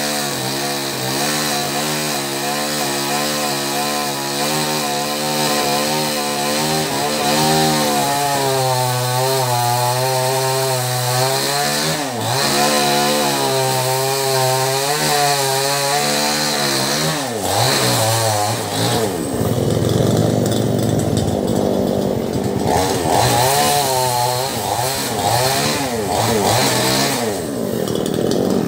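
Two-stroke chainsaw with a freshly sharpened chain, its depth gauges ground down, running under load as it cuts wood. Its pitch wavers up and down as the chain bites.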